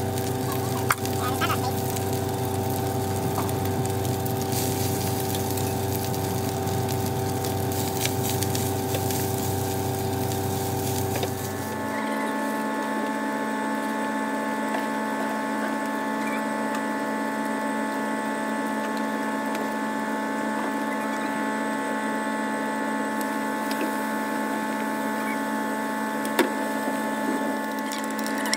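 Steady mechanical hum of a motor, holding several unchanging tones. About twelve seconds in it switches abruptly to a different, higher hum with no deep rumble.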